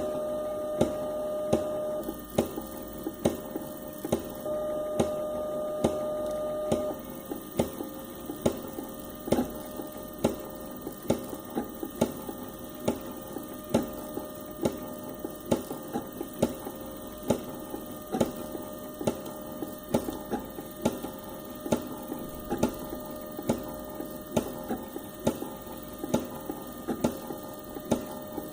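3D printer's NEMA 17 stepper motors running, with a steady whine at the start and again a few seconds later, over sharp clicks repeating about twice a second: the acme lead screw skipping at its coupler.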